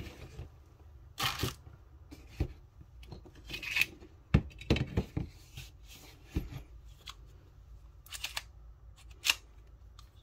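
Handling noises from a blue plastic pistol case, steel 1911 magazines and the pistol itself: scattered clicks, knocks and short rustles as the magazine is taken out and set down and the pistol is picked up.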